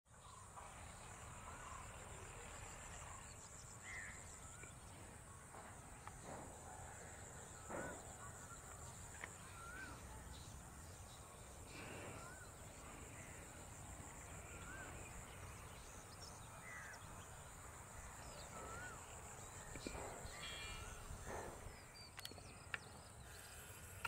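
Faint outdoor ambience of birds and insects: a steady high-pitched insect drone, short chirping bird calls every second or two, and a few louder, harsher calls.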